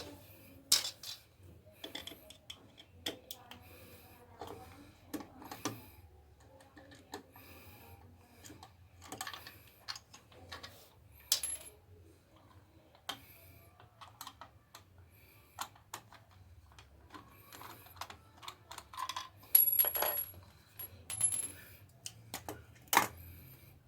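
Irregular clicks, taps and knocks of plastic and metal as a loose, worn wall socket outlet is worked free of its mounting plate, with a louder clatter near the end.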